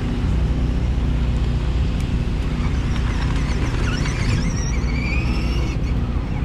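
Vehicle engines running steadily under a heavy low rumble, with the pitch rising in glides a few times.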